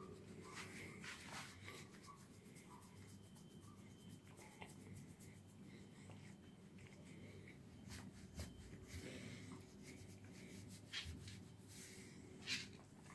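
Faint rustling of a hand rubbing and stroking a dog's fur, with a few soft clicks scattered through and a short, sharper sound near the end.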